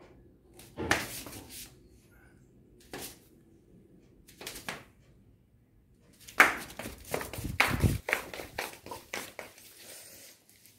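Irregular scuffling and rustling from a golden retriever puppy playing with an object it has grabbed: a few separate bursts, then a busier run of them in the second half.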